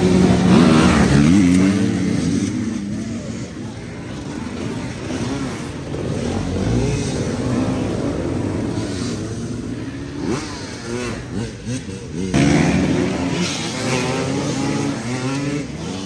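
Enduro dirt bike engine revving up and down again and again under throttle, with a sudden louder burst about twelve seconds in.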